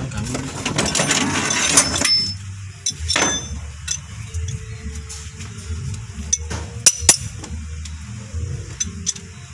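Spanners clinking against the rocker arms and valve-lash adjusting screws of a carburetted car engine as the valve clearance is set. There is a scraping rattle in the first two seconds, then scattered sharp metal clinks.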